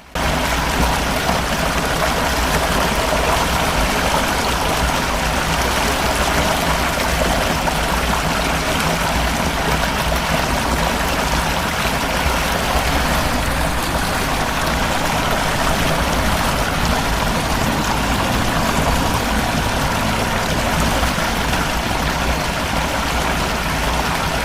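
Fast-flowing floodwater rushing, a loud, steady sound that cuts in suddenly and holds without a lull.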